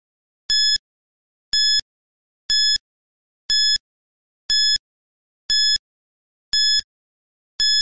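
Countdown timer sound effect: a short, high electronic beep once a second, eight in all, ticking off the seconds left to answer.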